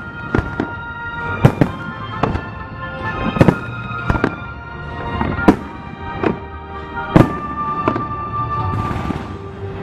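Aerial firework shells bursting overhead in a rapid run of sharp bangs, with the loudest about every two seconds. Music plays under the bangs throughout.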